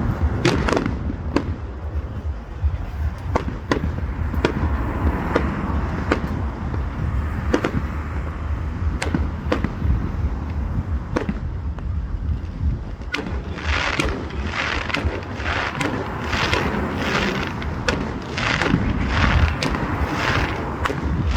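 Fireworks display: sharp bangs of bursting shells at irregular intervals, over a steady low rumble. From about two-thirds of the way through, a run of crackling, hissing bursts comes in among the bangs.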